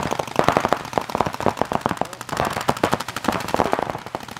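Several paintball markers firing rapid strings of shots at once, the shots coming many times a second in an uneven, overlapping stream.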